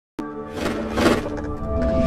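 Logo-sting music starting suddenly with held tones, with two quick whooshes about half a second and a second in.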